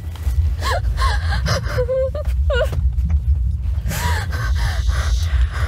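A young woman gasping and sobbing in short, shaky, whimpering breaths, over a steady low rumble.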